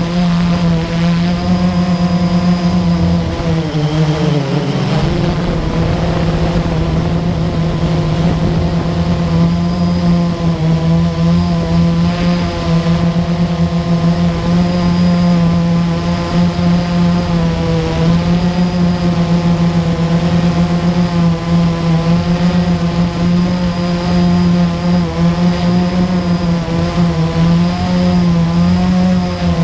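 Quadcopter drone's electric motors and propellers humming steadily close to the microphone, with the pitch dipping briefly about four seconds in and wavering slightly as the drone comes down low over the grass.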